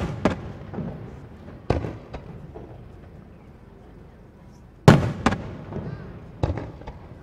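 Aerial firework shells bursting in the sky: several sharp booms, the loudest at the very start and about five seconds in, each followed by a smaller crack and trailing off in a rolling echo.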